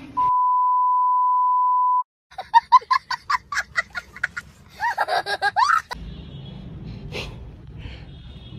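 A steady single-pitch beep tone, like an edited-in bleep, lasting about two seconds. After a brief gap, a young boy laughs hard in rapid, rhythmic bursts for about three and a half seconds, rising into squeals near the end. Then comes a low steady hum of room noise.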